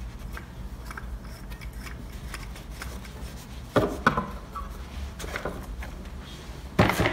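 Small clicks and knocks of metal and plastic parts being handled and fitted together on a beer bottle filler, with two sharper knocks about four seconds in and another near the end.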